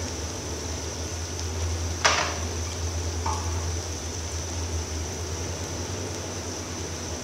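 Sliced onions frying in oil in a large pot over a high gas flame: a steady hiss over a constant low hum. There is one sharp knock about two seconds in and a softer one a second later.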